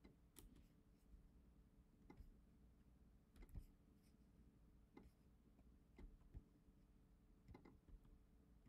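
Near silence: faint room tone with a low steady hum and a handful of faint, scattered computer mouse and keyboard clicks.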